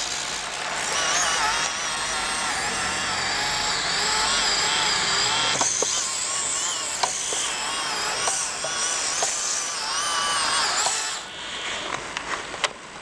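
Small electric motor and gears of a 1/24-scale Reely micro crawler RC car whining as it drives, the pitch rising and falling with the throttle, with a few clicks. The whine drops away about eleven seconds in.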